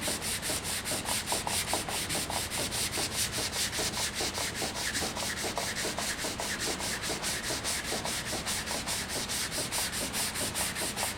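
Wet sanding by hand with 320-grit sandpaper on the cured finish of a wooden drum shell: quick, even back-and-forth strokes, about five a second, flattening the surface and dulling its shine ready for buffing.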